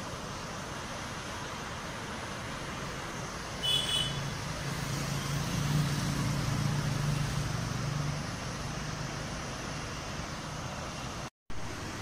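A road vehicle's engine passes, growing louder about four seconds in and fading by about eight seconds, over a steady rushing background noise. A brief high-pitched sound comes just as the vehicle noise rises.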